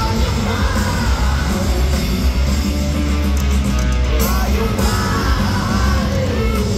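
Live rock band playing loudly through an arena sound system, with a heavy bass, as recorded from among the crowd.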